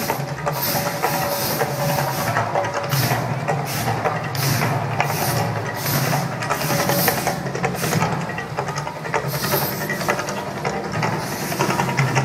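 Gas flame jets of the Mirage's man-made volcano show going off across the lagoon: irregular hissing whooshes of fire every second or so, over a steady low rumble.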